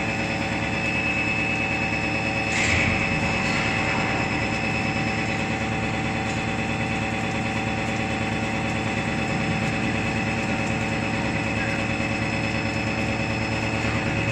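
Edge milling machine's milling head running, its face cutter beveling the lower edge of a steel plate: a steady machine hum made of several steady tones. There is a brief louder noise about two and a half seconds in.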